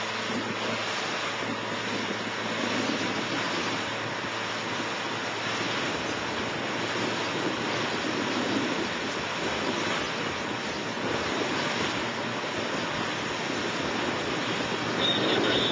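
Steady rush of a boat's churning wake and wind buffeting the microphone while the boat runs under power.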